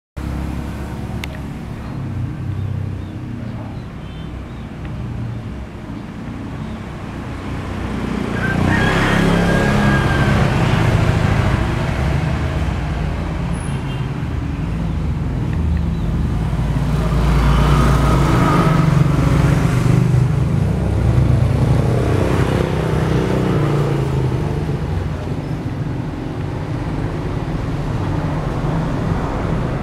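Road traffic rumbling steadily, with vehicles passing louder twice, once about a third of the way in and again past the middle.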